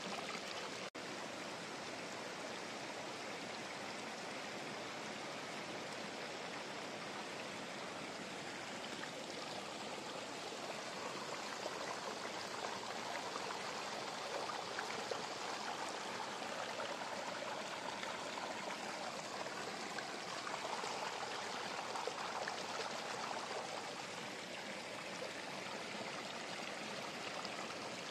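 Steady rushing hiss, like running water, with no clear strokes or clicks, swelling a little in the middle.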